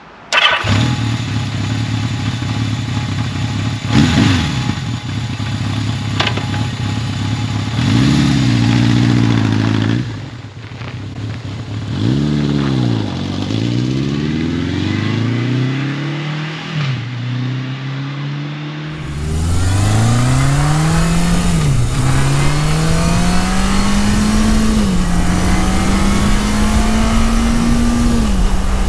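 A 1980 Yamaha XS1100 Special's 1100cc inline four runs steadily, then is revved about eight seconds in. It pulls away, rising in pitch and dropping back at each gear change, then is heard from on the bike with wind noise, climbing again through three more upshifts.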